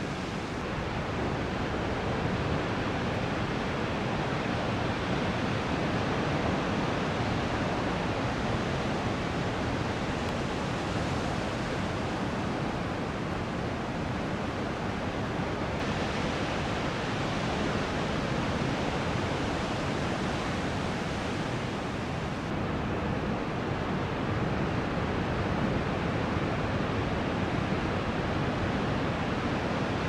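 Big 7–9 ft ocean surf breaking and washing in: a steady rush of wave noise that swells and eases slightly.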